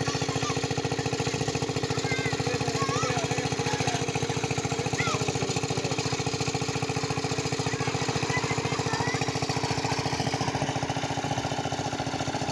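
A small engine running steadily with a fast, even chugging.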